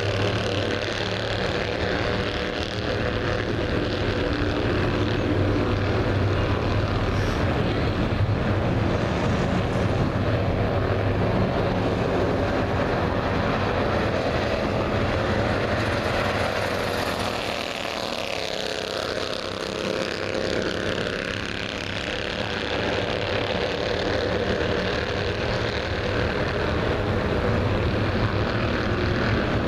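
Bandolero race car engine running continuously, its pitch sliding down and back up again around the middle.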